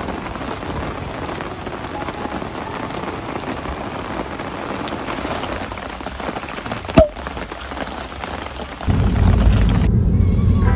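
Heavy rain falling steadily, with one sharp knock about seven seconds in. Near the end a louder, deep low rumble takes over.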